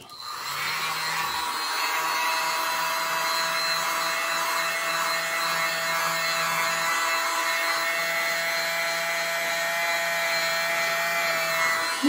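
Small handheld hairdryer starting up and then running steadily, a rushing blow with a faint motor whine, blowing wet acrylic paint outward in a bloom pour.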